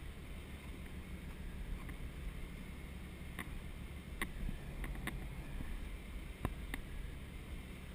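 Boat's Detroit 6-71 two-stroke diesel running steadily under way, a low drone under wind and water noise, with a few sharp clicks in the second half.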